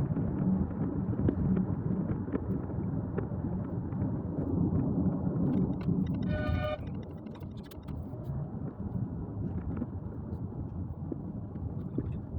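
Road vehicle running with a steady low rumble, and a short car-horn toot about six seconds in, after which the rumble drops a little.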